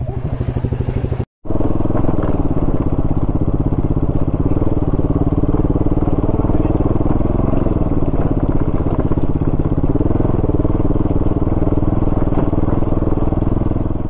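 Motorcycle engine running as the bike is ridden slowly over a rough stony dirt track, its note rising and falling a little with the throttle. The sound drops out briefly about a second in and cuts off sharply at the end.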